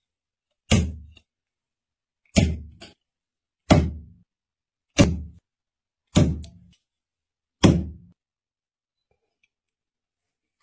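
Six separate hammer blows driving nails into a pine board, each a sharp knock with a short dull thud after it, roughly one to one and a half seconds apart.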